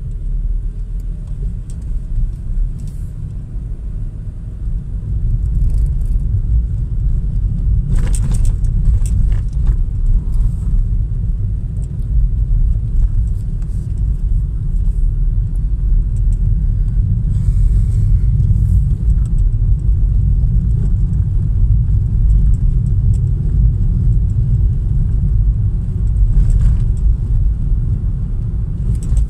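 Car cabin noise while driving: a steady low rumble of engine and tyres on the road, getting louder about six seconds in, with a few light clicks and rattles.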